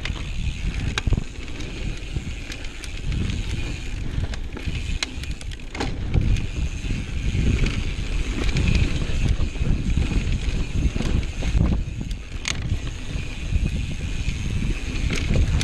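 Mountain bike descending a dry dirt trail: wind buffeting the microphone as a heavy uneven rumble, with tyres running over dirt and frequent sharp clicks and rattles from the bike over the bumps.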